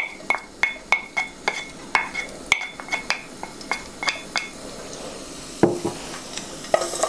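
A stainless-steel spoon is tapped repeatedly against a nonstick wok and wooden spatula, about three light ringing clicks a second, knocking chopped garlic into hot oil. The tapping stops about four and a half seconds in, leaving the faint sizzle of garlic frying, with a single knock about five and a half seconds in.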